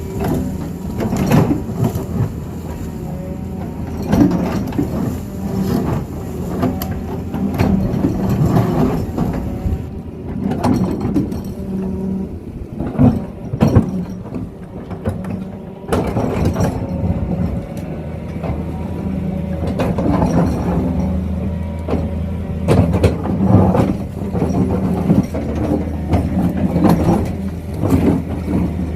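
Doosan excavator's diesel engine running steadily under load, with irregular knocks and scrapes from the bucket working the hillside.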